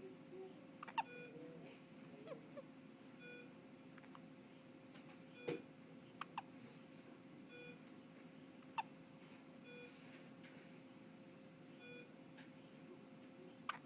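A baby hiccuping: short, sudden hics a few seconds apart, several times. A faint electronic beep repeats about every two seconds underneath.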